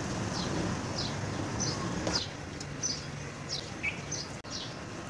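A small bird chirping repeatedly in the background: short, high, downward-falling chirps about two a second, over a faint steady hiss.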